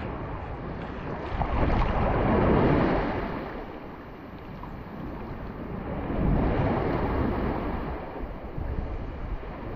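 Shallow sea waves washing and surging around a person wading, with wind rumbling on the microphone. The wash swells twice, about two seconds in and again after about six seconds.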